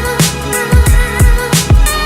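Background music with a steady drum beat, deep kick drum and bass under sustained pitched notes.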